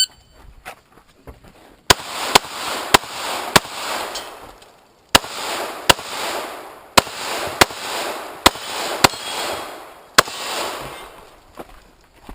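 Pistol shots fired in quick succession while shooting a practical-shooting stage: about eleven shots, mostly in pairs about half a second apart, with short pauses between pairs. Each shot trails a brief echo.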